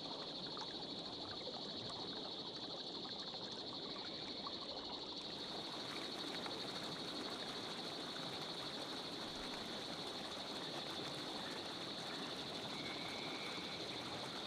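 Flowing stream water, an even rushing wash, with a steady high-pitched trill held over it.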